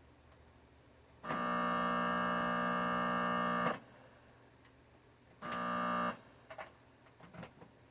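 A loud, steady, harsh buzz through a speaker from a video cable plugged into an AV audio input: the video signal is being reproduced as sound. It sounds for about two and a half seconds, cuts off, then comes back for about half a second, followed by a few small clicks from the plug.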